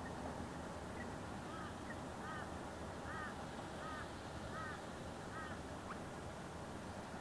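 Osprey calling: a series of about six short whistled chirps, evenly spaced, over a steady background hiss.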